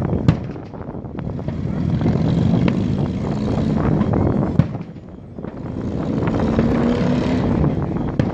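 Two sharp firework bangs, one just after the start and one about halfway through, over a rushing background noise that swells twice.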